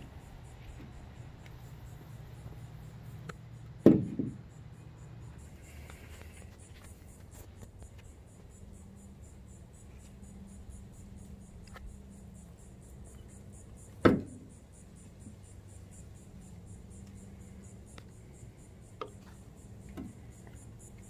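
A few sharp knocks of PVC fittings and primer and cement cans being handled and set down on a pickup tailgate's plastic bed liner. The two loudest come about four and fourteen seconds in, over a faint steady hum.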